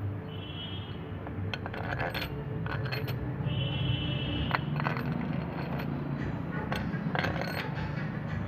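Metallic clinks, taps and scrapes of steel head bolts being handled and dropped into the bolt holes of a diesel cylinder head. Two brief ringing clinks come about half a second in and between three and four and a half seconds in.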